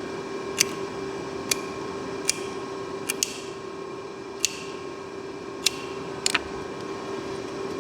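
Milling machine running without cutting, a steady hum, while about eight sharp, light clicks come at uneven intervals, like small parts or wooden plugs being handled or tapped.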